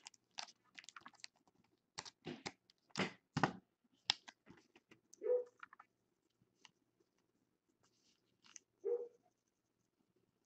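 Faint, scattered clicks and short rustles of cards and packaging being handled on a table, with two slightly fuller soft knocks about five and nine seconds in.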